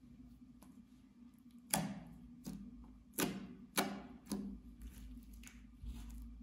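Slime being pressed and poked with fingertips, giving about five sharp sticky clicks and pops, the loudest near two, three and four seconds in.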